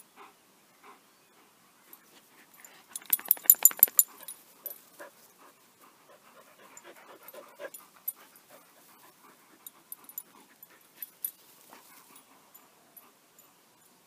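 Dog panting, with a loud, quick run of breaths about three seconds in, then only faint, scattered sounds.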